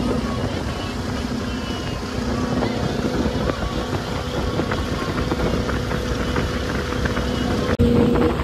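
Motorboat engine running at a steady hum under wind and water noise, broken by an abrupt cut near the end.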